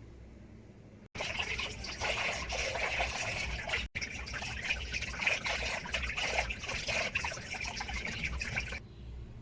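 Water running and trickling. It starts suddenly about a second in, breaks off for an instant a little before four seconds in, and stops near the end.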